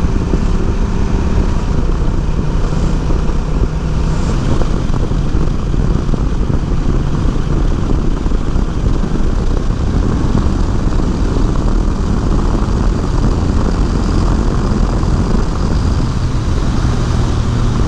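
Honda Rebel 1100's parallel-twin engine running at road speed under heavy wind rush over the microphone. The engine tone steps to a new pitch near the end.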